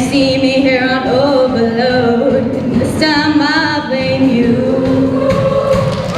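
Show choir singing in harmony, many voices holding chords that shift every second or so.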